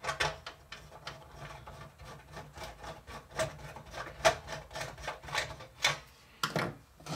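Small screwdriver turning a screw into a toy oven's housing: a run of small scraping clicks and ticks.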